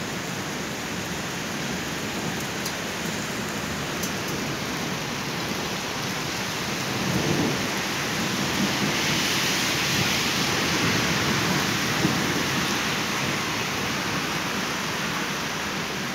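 Heavy rain pouring down in a thunderstorm, with thunder rumbling; the downpour grows louder around the middle.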